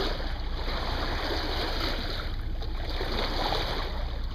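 Steady rush of water and wind from a boat under way at sea, with a constant low hum underneath.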